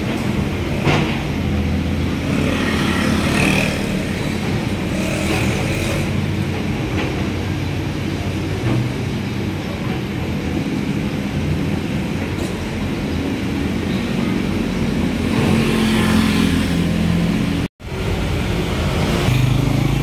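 Street traffic: motor vehicles passing close by over a steady low engine rumble. The sound cuts out for an instant near the end.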